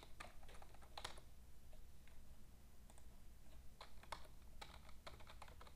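Faint computer keyboard typing: irregular key clicks, a few at a time.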